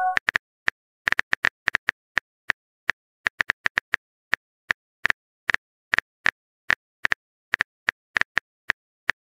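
Smartphone on-screen keyboard clicks: a quick, uneven run of short taps as a text message is typed out, letter by letter.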